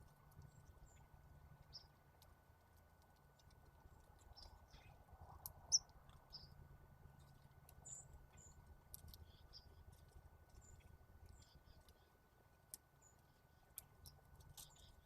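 Faint, short, high bird chirps scattered throughout, with a few sharp clicks, the loudest about six seconds in, over a low steady hum.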